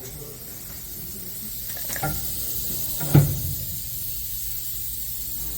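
Two knocks over a steady hiss: a lighter knock about two seconds in, then a louder thump about a second later.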